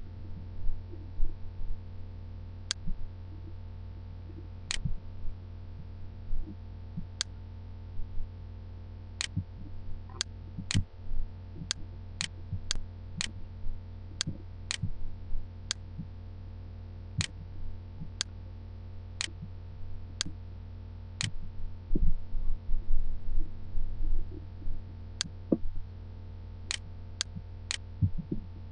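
Computer mouse clicking at irregular intervals, mostly single clicks a second or two apart with a quicker run of clicks about halfway through, over a steady low electrical hum. A few dull low knocks come a little past the middle.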